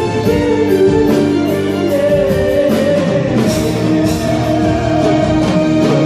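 Live pop band playing: a steady drum-kit beat under sustained keyboard and horn chords, with a wavering sung line over the top.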